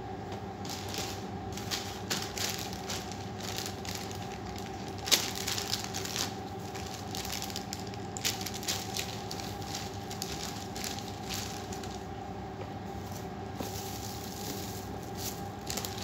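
Plastic packaging crinkling and rustling as it is handled, in irregular crackly bursts, with the sharpest crackle about five seconds in. A steady low hum runs underneath.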